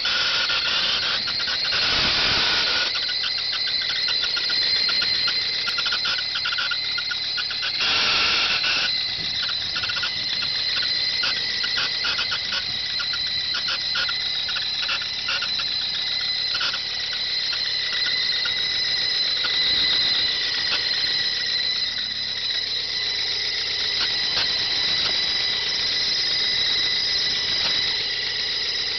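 High-pitched squeal with a fast chirping flutter from the accessory belt drive of a 1995 Ford Probe GT's running 2.5 L V6, swelling louder twice early on and then holding steady. The noise appeared right after new power steering and alternator belts were installed, so it points to those belts or the pulleys they drive.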